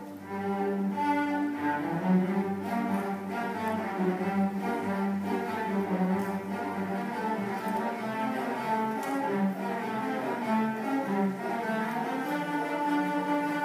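School string orchestra playing live: violins, cellos and double basses bowing a Halloween concert arrangement together.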